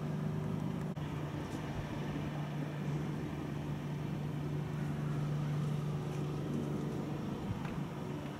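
A steady mechanical hum: one low droning tone held unchanging under a noisy hiss, with a brief click about a second in.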